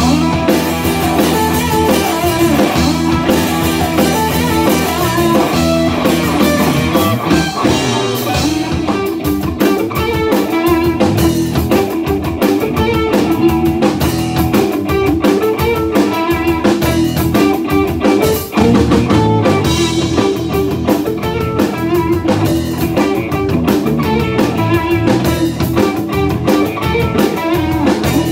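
Instrumental blues-rock band playing live: two electric guitars through amplifiers, an electric bass and a drum kit.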